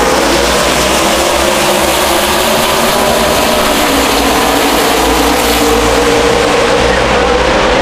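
A full pack of NASCAR stock cars with V8 engines at full throttle as the race goes green, a dense and steady wall of engine noise.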